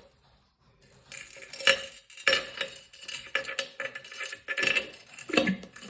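Irregular clattering and knocking of small hard plastic objects: a plug going into a basin and small plastic toys being handled. It starts under a second in after a brief hush.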